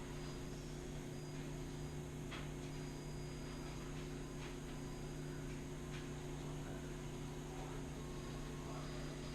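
Small electric RC truck drivetrain running steadily under a steady low hum, with a thin high whine that comes and goes and a few faint clicks.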